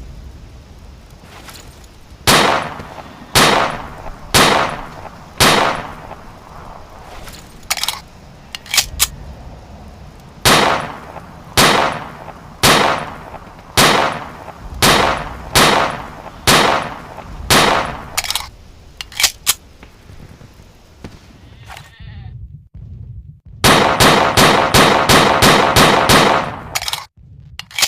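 Walther P38 9mm pistol shots, fired singly about a second apart in two strings, with light mechanical clicks between them. Near the end comes a fast run of about a dozen shots with a metallic ringing.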